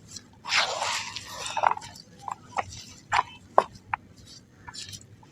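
Soft dry mud crumbling, a crunchy rustle of a second or so, then a scatter of sharp crackles and clicks.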